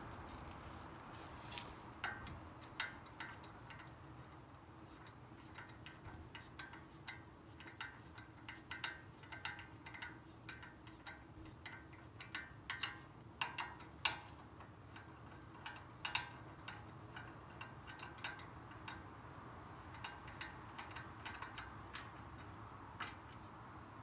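Scattered metallic clicks and clinks of hand tools and lug nuts being worked at a wheel spacer on a brake rotor hub. The clicks come irregularly and are busiest in the middle.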